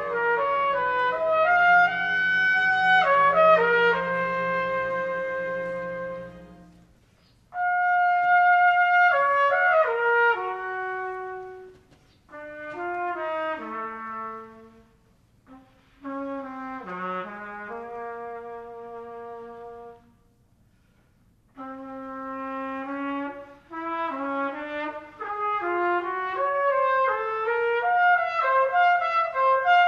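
Solo trumpet playing a melodic passage in short phrases with brief pauses between them. The orchestra holds sustained chords under it for the first several seconds, then the trumpet goes on alone.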